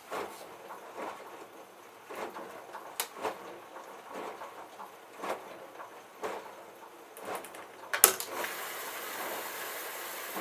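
Whirlpool Duet Sport washer's detergent dispenser mechanism clicking and knocking at irregular intervals. About eight seconds in there is a sharp loud click, followed by a steady hiss of water running into the dispenser.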